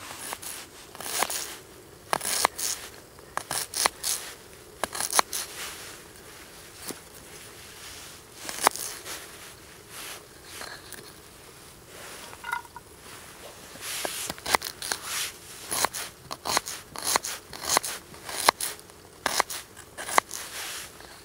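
Knife cutting and dicing an onion on a wooden cutting board: crisp cuts through the onion and knocks of the blade on the board, in irregular runs with short pauses between.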